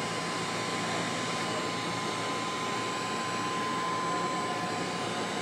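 Heat gun running, blowing hot air steadily with a constant whine, to shrink heat-shrink tubing over a soldered wire joint.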